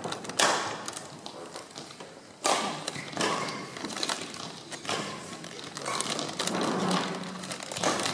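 Badminton rackets striking the shuttlecock during a rally, sharp hits every couple of seconds that echo in the hall, with light footfalls and shoe squeaks on the court in between.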